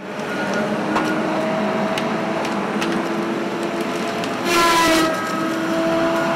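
Heavy logging machinery running, a steady engine and hydraulic drone with a few sharp knocks and clanks. About four and a half seconds in, a louder rush of about half a second carries a few short falling whines.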